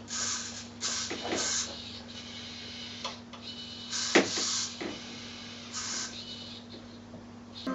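A steady low electrical hum with a handful of short clicks and brief whirring, hissing bursts at uneven intervals, one louder click about four seconds in. These are mechanical handling sounds, not rapid firing.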